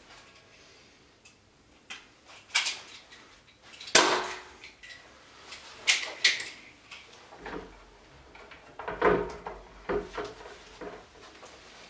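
Irregular knocks and clatters of objects being handled and set down, with the loudest knock about four seconds in and a cluster of softer taps and scrapes around nine to ten seconds in.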